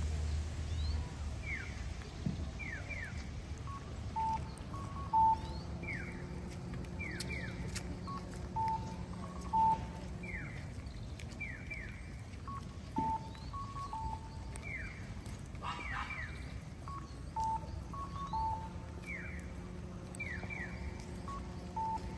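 Japanese audible pedestrian crossing signal, alternating a cuckoo-style two-note electronic call (a higher beep, then a lower one) with pairs of quick falling chirps, repeating every few seconds: the tone that tells pedestrians the light is green to cross.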